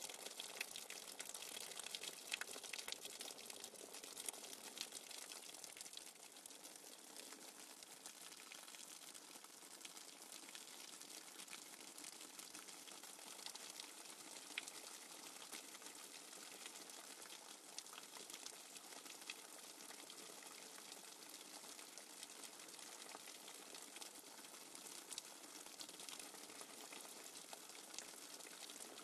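Faint nature-sounds backing track of running, bubbling water: a steady hiss with many small crackles.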